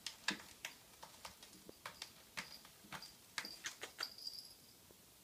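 A run of light, irregular clicks and taps, about a dozen over four seconds, dying away near the end.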